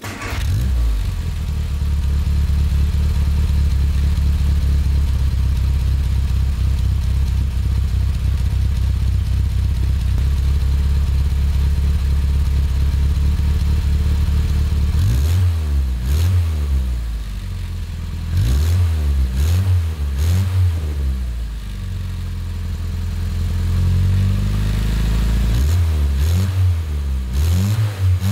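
Exhaust of a 1965 Morris Mini Cooper 1275S, a twin-carburettor 1275 cc A-series four-cylinder breathing through a three-branch manifold and the original Mk1 silencer, idling steadily. From about halfway through the throttle is blipped several times, the revs rising and falling, with one longer rev near the end.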